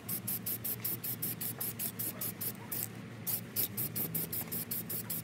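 Background music with a fast, even beat of hissing hi-hat-like strokes, about five a second, over a low steady bass; the beat drops out briefly about three seconds in.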